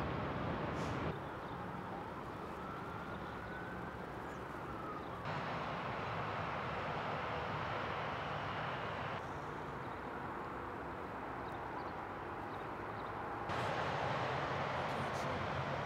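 Steady freeway traffic noise from heavy, slow-moving interstate traffic, its level jumping up or down abruptly several times. A faint tone rises in pitch from about two seconds in, then drops away near five seconds.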